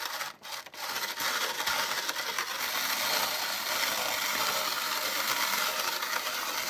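Hand-cranked toy mixer of a 1993 Mattel McDonald's Happy Meal Hamburger Snack Maker grinding crispy rice cereal and chocolate drink mix: the plastic paddle rubs against the notched cup wall, giving a continuous rasping crunch with a brief break just after the start.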